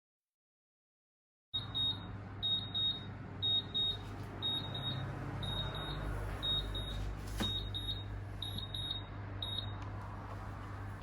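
Short high-pitched electronic beeps, mostly in quick pairs, repeating at an uneven pace over a low steady hum, starting after about a second and a half of silence.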